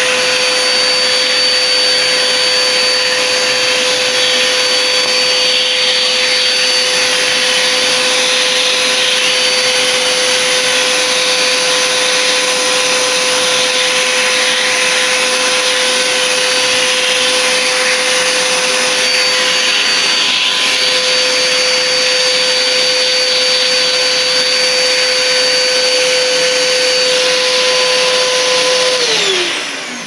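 Vacuum cleaner running steadily with a motor whine over the rush of air through its hose nozzle, sucking dust off a graphics card's thermal pads and heatsink. Near the end it is switched off and the whine falls in pitch and fades as the motor spins down.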